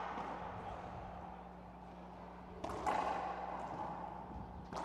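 Racquetball shots in an enclosed court: a pair of sharp cracks of the ball off racquet and wall about two and a half seconds in, and another near the end, each ringing out in a long echo.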